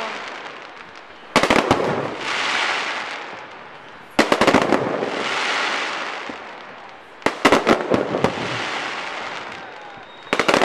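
Fireworks going off: four volleys of sharp bangs about three seconds apart, each followed by a crackling hiss that fades away.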